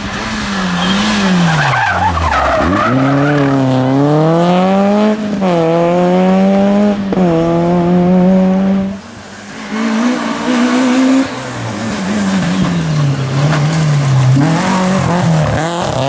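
Rally car engines run hard at full throttle. The first engine drops in pitch as the car slows for a corner, then climbs steeply through the revs, breaking off twice at upshifts. After a short dip, a second car's engine rises and falls as it works through a bend.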